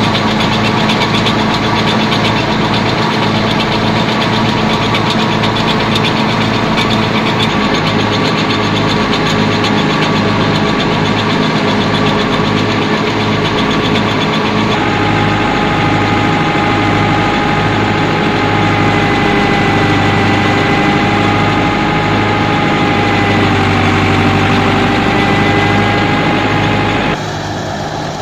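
Stationary wheat thresher running while it is fed, driven by a Massey Ferguson 385 tractor's diesel engine: a loud, steady mechanical drone with a pulsing low beat. A thin whine comes in about halfway, and the sound drops in level shortly before the end.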